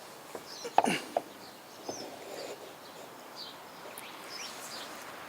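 Birds chirping intermittently over a low, even outdoor background, with a brief pitched sound and a couple of light knocks in the first two seconds.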